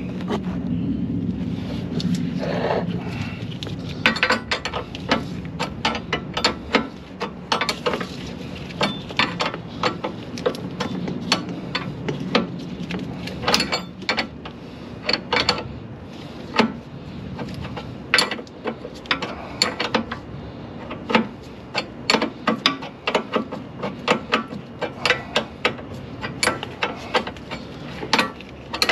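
Ratchet wrench clicking in quick runs as bolts under a car are turned, with occasional metal clinks. A low hum sounds in the first few seconds.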